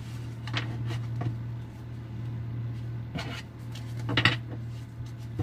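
A deck of tarot cards being handled and shuffled: a few short rustles and snaps, the loudest just after four seconds, over a steady low hum.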